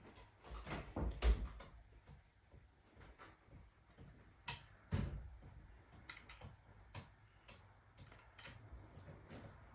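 Scattered light clicks and taps of metal parts and a hex key while screws are fitted into an Ender 3D printer's frame, with one sharper click about four and a half seconds in and a knock just after.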